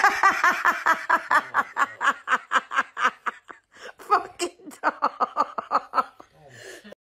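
A person laughing hard: a long run of quick 'ha' pulses, about five a second, then after a brief catch of breath a few more uneven bursts that trail off near the end.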